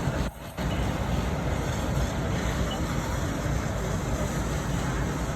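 Steady rumble of engines running at a fire scene, as of fire trucks standing by, with the sound dropping out for a moment just after the start.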